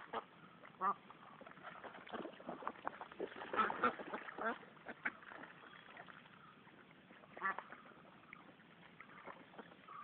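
A flock of Vigova ducks quacking in short, scattered calls, busiest around four seconds in, with another brief cluster of calls a little past seven seconds.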